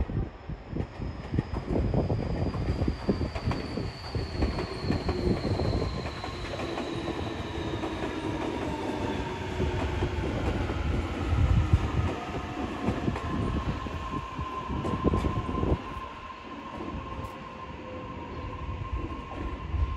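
Tokyu 2020 series electric train pulling out of a station. Its wheels clatter over rail joints and points, and a thin whine slides slowly down in pitch through the first half.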